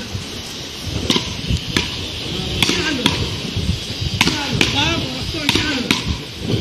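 Beach paddle rackets hitting a ball back and forth in a rally: a string of sharp knocks, about two a second.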